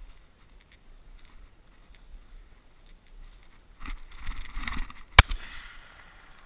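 About a second of rustling movement, then a single sharp shot from a 1970s Remington 1100 semi-automatic shotgun fired at a duck, with a short ring-out after it.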